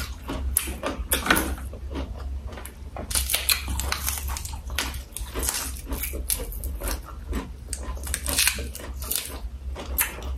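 Close-miked chewing with irregular crisp crunches of raw green vegetables and boiled beef, over a steady low hum.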